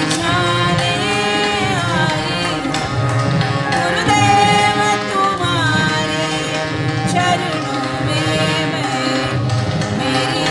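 Devotional bhajan: a woman singing a melodic, gliding line with tabla and melodic instrument accompaniment.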